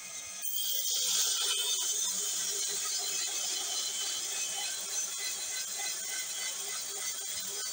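Electric band sawmill sawing through a squared wooden log: a steady hiss and whine of the blade in the wood, which gets louder about half a second in and then holds.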